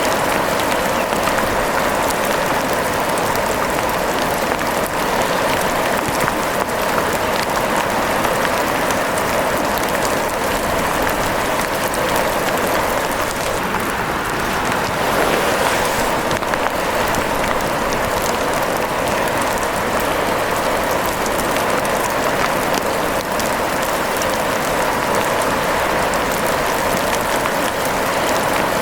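Steady rain falling, an even hiss of many small drops pattering without a break.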